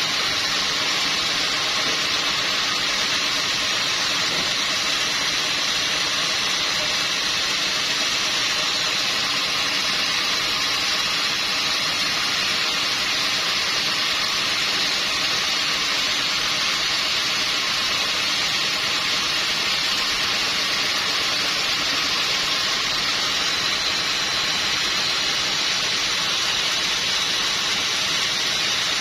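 Sawmill saw running continuously: a steady hiss with a faint high whine that holds at one level throughout.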